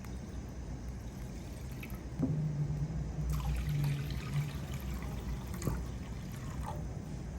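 Liquid poured and trickling for a few seconds, starting about two seconds in and tailing off about six seconds in, over a steady low background hum.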